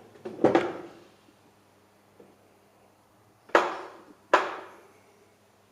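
Hand scraper strokes on an unhardened machine-tool guideway: three sharp, loud strokes, each dying away quickly, one just after the start and two close together about three and a half seconds in.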